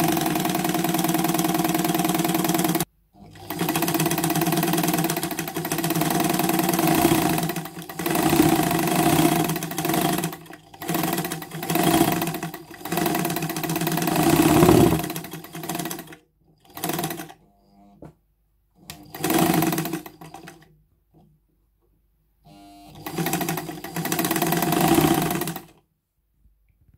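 Jones D-66DL semi-industrial, straight-stitch-only sewing machine running and stitching fabric in stop-start runs: a long run through most of the first sixteen seconds with a short break near three seconds, then three shorter runs with pauses of a second or two between them.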